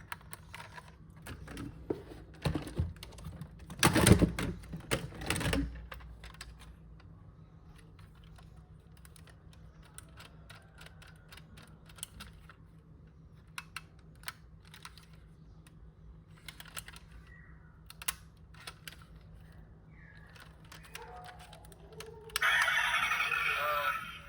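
Small clicks and taps from a diecast model car and its packaging being handled, with a louder clatter of knocks about four seconds in. A loud, steady, car-like noise comes in near the end.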